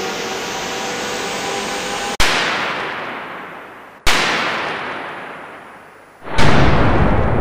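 Artificial lightning strikes from a high-voltage impulse generator, discharged onto an aerial fibre cable. After a steady hiss, two sharp cracks come about two seconds apart, each dying away in a long echo. Near the end a louder, deeper boom follows.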